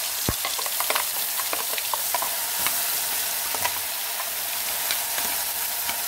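Wet ground mustard spice paste sizzling steadily as it hits hot oil in a steel kadhai, with scattered clicks and scrapes of a steel slotted spoon against the steel jar.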